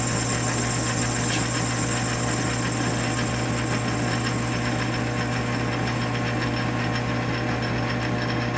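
South Bend 9-inch metal lathe running steadily while a facing tool cuts across the end of a spinning aluminum bar.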